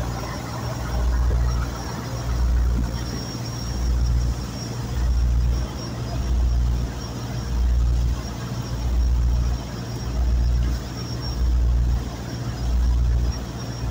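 Boat engine running steadily, with a deep throb that swells and fades a little less than once a second over a constant hum.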